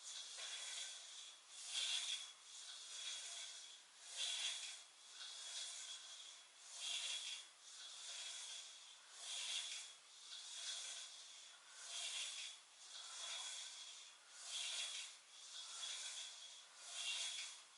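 Faint, rhythmic hissing swishes from someone doing weighted crunches: a stronger swish about every two and a half seconds with a weaker one between, the sound of breath and body moving with each repetition.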